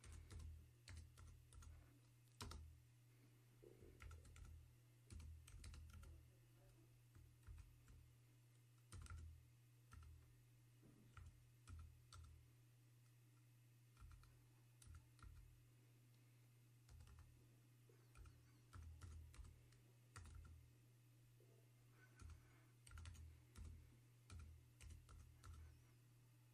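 Faint computer keyboard keystrokes, typed irregularly a few keys at a time with short pauses, over a steady low hum.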